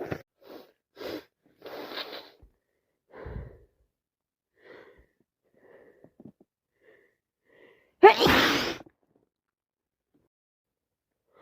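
A person with a head cold sneezing: a run of short, catching breaths, then one loud sneeze about eight seconds in.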